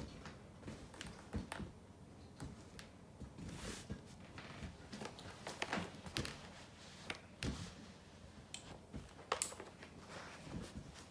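Faint rustling and scattered light taps of hands smoothing and handling denim fabric on an ironing board, irregular with no steady rhythm.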